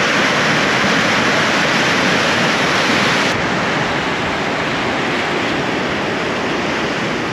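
Steady, loud rush of fast-flowing river water. The highest hiss drops away abruptly about three seconds in.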